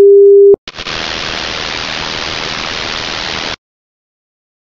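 A loud, steady test-card beep tone cuts off about half a second in, then television static hisses evenly for about three seconds and stops abruptly.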